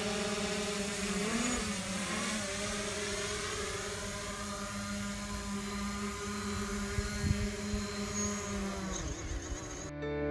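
DJI Mavic quadcopter's propellers buzzing steadily in the air, a many-toned motor whine that sags slightly in pitch and fades out about nine seconds in. Piano music starts right at the end.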